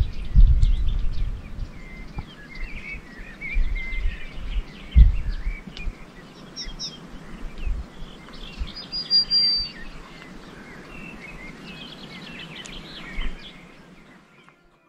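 Wild birds chirping and whistling, many short calls scattered throughout. Low rumbling thumps of wind buffeting the microphone come and go, loudest near the start and about five seconds in.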